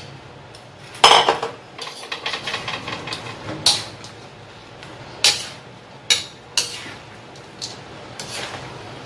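Metal spatula clanking and scraping against a metal wok while fried tofu is stirred into vegetables: a string of sharp clanks, the loudest about a second in, with quick scraping in between.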